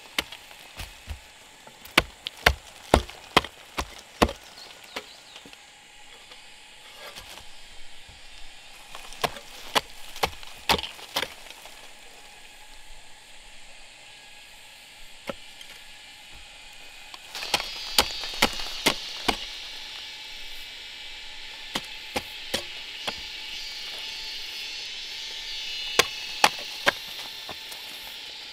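Sharp chopping strikes, about two a second, in irregular groups separated by pauses. From about two-thirds of the way through, a steady hiss rises behind them.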